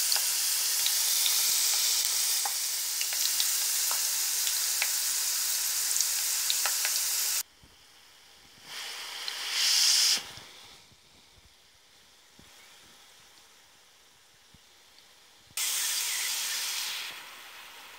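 Spiral-cut potato slices on wooden skewers sizzling as they deep-fry in hot oil: a steady hiss with scattered crackles. It cuts off suddenly about seven seconds in, returns briefly twice, and drops away to a quiet stretch in between.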